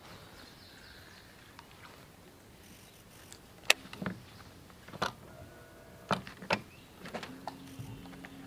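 Several sharp clicks and knocks from handling gear on a small boat, the loudest about three and a half seconds in, then an electric bow-mounted trolling motor starts with a steady low hum a little after seven seconds.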